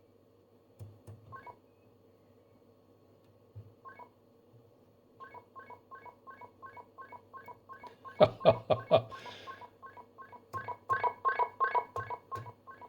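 Short electronic tone beeps from a Storno TS-G13 sequential tone encoder, the tone sequences used for selective calling on land mobile radio. A few isolated beeps come first, then an even run of about four beeps a second from about five seconds in, with louder clicks near the middle of the run.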